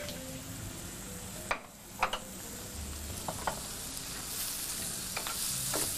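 Meat and chopped red onions sizzling in oil and ghee in a stone-coated frying pan while a metal slotted spoon stirs them. The spoon clinks sharply against the pan several times over the steady frying hiss.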